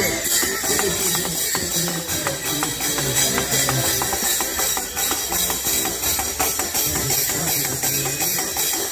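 Music with a steady beat: jingling, rattling percussion over short held low notes.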